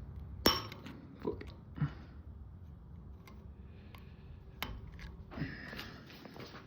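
Metal clinks and clicks from snap ring pliers working a snap ring out of a steel barbell sleeve, a sharp click about half a second in being the loudest, with a few more clinks and a scraping metal rub near the end.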